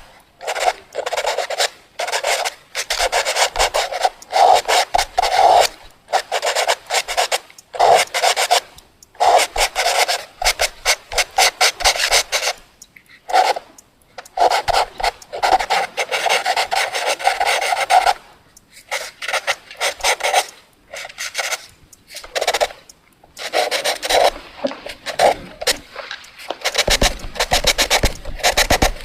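Fast drawing strokes scratching across a surface: runs of quick, rasping back-and-forth scribbles, each a second or a few seconds long, broken by short pauses, with a low rumble near the end.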